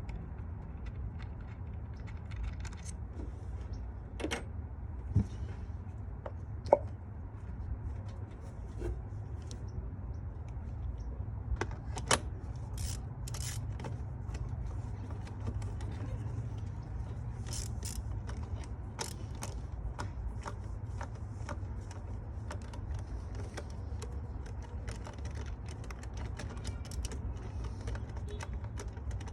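Hand tools and metal engine parts clicking and tapping now and then during a spark plug change, over a steady low hum. A few sharper clicks stand out among the lighter taps.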